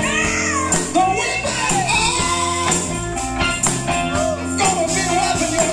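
Live rock band playing: electric guitar and drum kit with a singing voice over them, driven by a steady drum beat.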